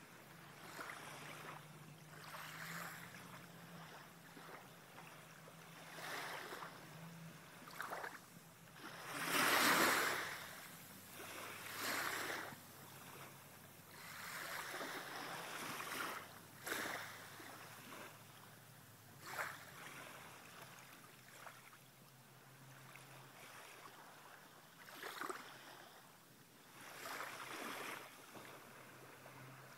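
Small waves lapping and breaking gently at the shore of calm sea water, in irregular washes every second or few, the biggest about ten seconds in. A faint low hum runs underneath.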